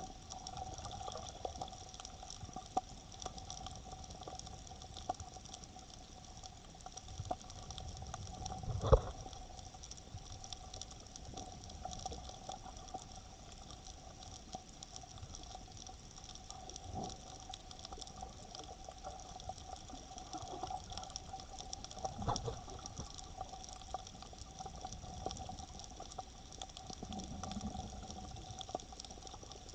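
Water heard from just below the surface through a camera's waterproof dive case: a steady sloshing wash with faint constant hums behind it. A few dull knocks come through, the loudest about nine seconds in.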